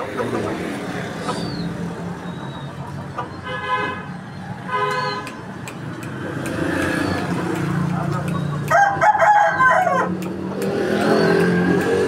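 A rooster crowing once, long and loud, about nine seconds in, after two short calls around four and five seconds in. Small caged birds chirp high and briefly throughout over a steady low background din.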